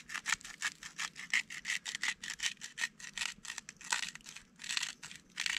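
Hand-twisted salt grinder grinding coarse pink Himalayan salt crystals, a rapid rasping crunch of about five strokes a second with a brief pause about four seconds in.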